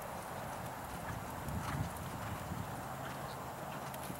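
Hoofbeats of a horse trotting on sand arena footing.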